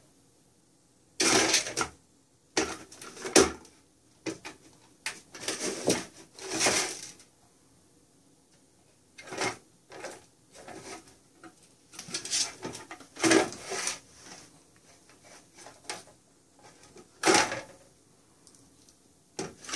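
A round plastic cat track toy being batted by a paw, the toy mouse inside it sliding and rattling around the track in short irregular bursts, about a dozen times with pauses between.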